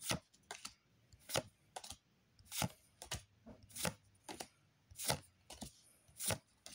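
Pokémon trading cards being flipped through one at a time, each card moved to the back of the stack with a short click, about every half second.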